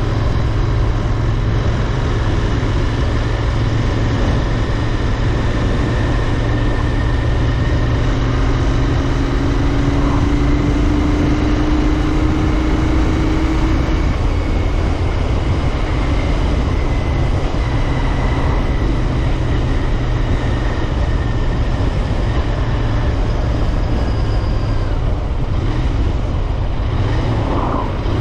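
Royal Enfield Interceptor 650's parallel-twin engine running steadily while riding, with wind and road noise. A faint tone rises slowly in pitch around the middle.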